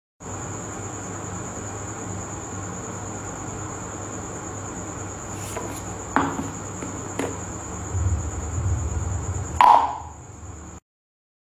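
Steady background hiss with a constant high-pitched whine. Over it, a few sharp taps and clicks come from a hand handling a plastic jar and its lid, with the loudest tap near the end.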